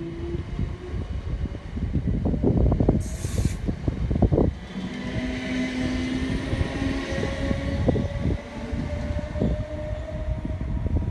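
A Class 455 electric multiple unit running past and away along the platform, its wheels rumbling and knocking over the rail joints under a steady motor whine that rises slightly in pitch about halfway through. A brief hiss comes about three seconds in.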